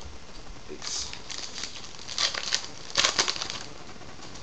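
A Topps Archives baseball card pack's wrapper crinkling and tearing as it is opened, in several short bursts, the loudest about three seconds in.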